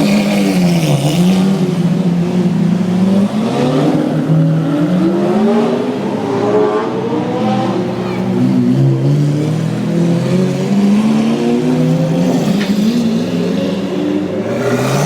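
Lamborghini Aventador's V12 engine running with repeated revs, its pitch rising and falling again and again.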